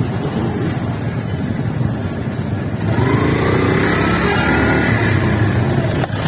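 Motorcycle riding, with a heavy low rumble of engine and wind on the phone's microphone. About halfway through, an engine note rises in pitch and then falls away again.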